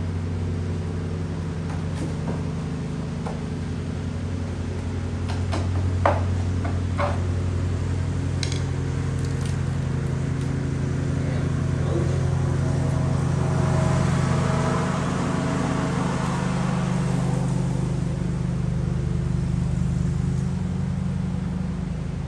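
A small engine running steadily with an even hum, with a few sharp clicks about six seconds in and a hiss that swells and fades in the second half.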